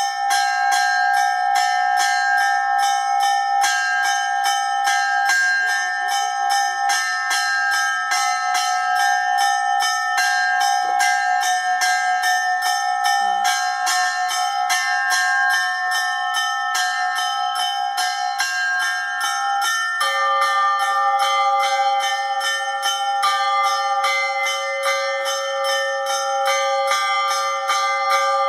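Russian Orthodox church bells ringing (zvon): small bells struck in a rapid, continuous pattern over several ringing tones, with a lower bell joining about two-thirds of the way through.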